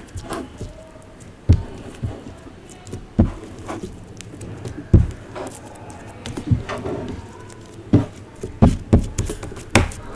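Clear slime being mixed and squished: irregular sticky clicks, pops and soft thuds about once a second.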